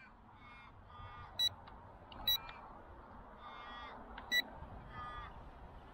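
Drone remote controller beeping its low-battery warning: three short high beeps about a second or two apart. Under them, ravens give a few drawn-out nasal calls.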